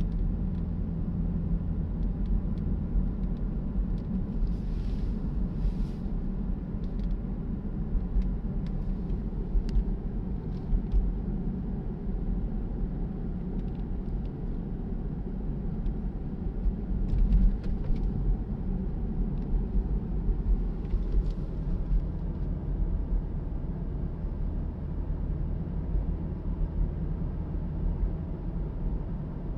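A car's engine and tyres heard from inside the cabin while driving at steady speed: a low, even rumble, with a few faint clicks and light knocks.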